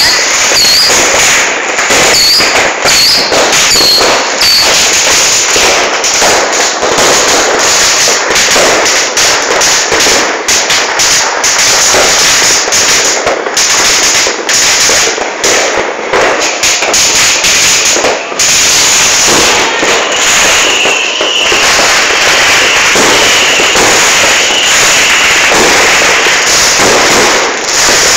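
Fireworks and firecrackers going off nonstop: loud, dense crackling and banging with no break, with a few short whistles in the first few seconds.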